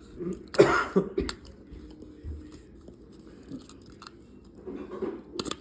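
Scattered plastic clicks and rustling from handling a remote-control toy and its batteries, with a short noisy burst, possibly breath or a cough, about half a second in.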